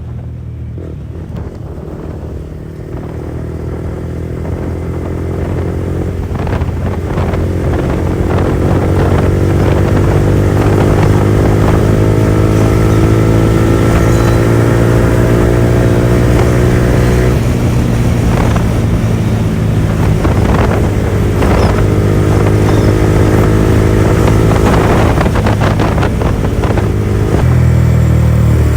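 Yamaha R15 V4's single-cylinder engine through an open R9 aftermarket exhaust with no dB killer, pulling hard at high speed. The note grows louder over the first few seconds, then climbs slowly in pitch, stepping down twice, once about halfway through and once near the end.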